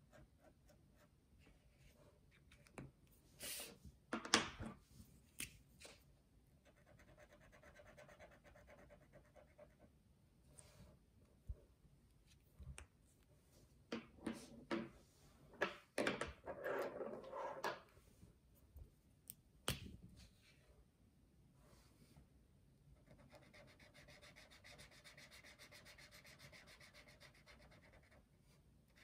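Brush-tip marker rubbing over paper as areas are coloured in, a soft steady scratching. Sharp clicks and plastic clatter come around a sixth of the way in and again in the middle, as markers are handled and a new one is taken from the pile.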